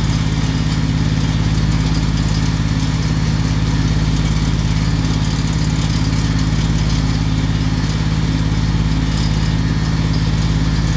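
Drilling rig's engine idling steadily, with an even hiss over it.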